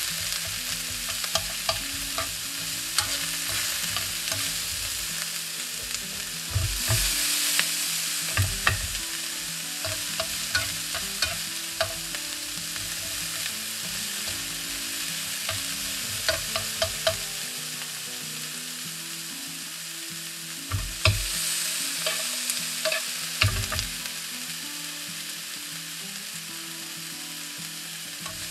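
Julienned vegetables sizzling in oil in a frying pan while being stir-fried with tongs, which click and scrape against the pan now and then. The sizzle swells louder briefly about seven seconds in and again around twenty-one seconds. The vegetables are being fried only lightly, just until they wilt.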